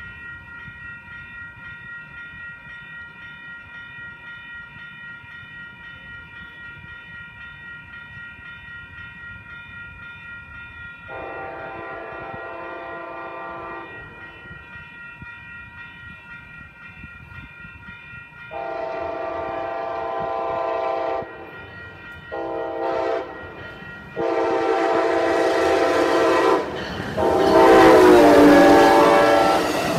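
Siemens locomotive's horn sounding the grade-crossing pattern of long, long, short, long blasts, with one more long blast, the loudest, as the train passes, its running noise building under it. Before the horn starts, a level-crossing bell rings steadily.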